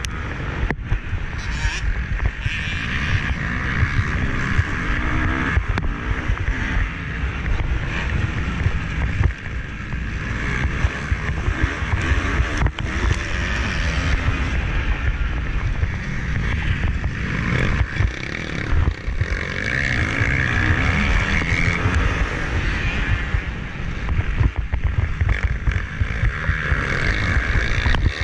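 Motocross bike engine at race speed, its revs rising and falling over and over, with heavy wind buffeting on the camera's microphone.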